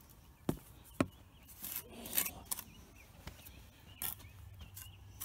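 Bricklaying: a steel trowel scraping mortar and tapping against bricks, with sharp clicks about half a second and a second in and another about four seconds in.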